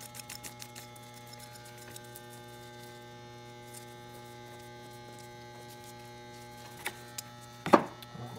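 Steady electrical mains hum, with a few light metal clicks in the first second and a sharp metal clank near the end, as steel tools are handled on a steel tool cart; the clank rings briefly.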